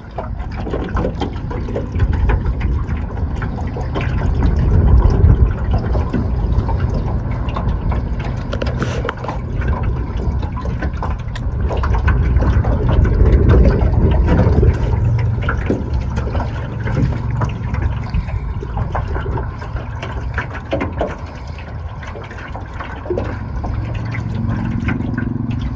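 Aluminum jon boat moving across a lake: water rushing and slapping against the metal hull over a steady low rumble that swells and eases.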